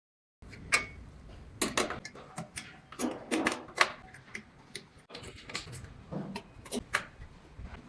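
Irregular sharp metallic clicks and knocks of screws and a hand tool as M6 combination screws are fitted and tightened to fix a computer stand to the machine.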